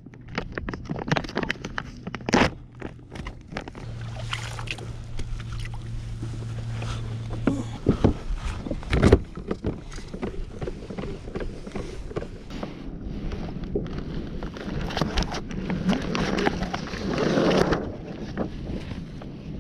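Water splashing and sloshing against the hull of a Hobie Adventure Island sailing kayak under way, with many sharp knocks and clatters. A steady low hum runs through the first eight seconds or so and stops suddenly.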